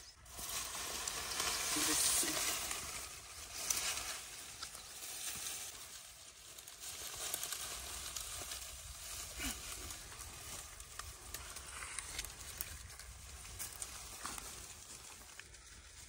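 A bundle of dry reed stalks rustling and crackling as it is heaved up onto a shoulder, loudest about two seconds in, then a fainter steady rustle as it is carried through grass and brush.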